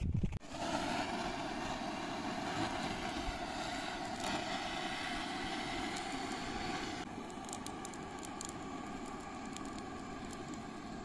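Portable butane gas torch burning with a steady hiss while it lights cardboard and kindling in a stove's firebox. The hiss starts about half a second in, and its higher part drops off about seven seconds in.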